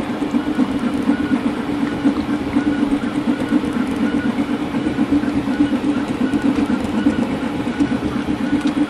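High-speed enclosed 3D printer running a vase-mode print at 375 mm/s with 50k acceleration: the motion system and print head run as a steady, loud mechanical drone with a strong low hum and a fast flutter.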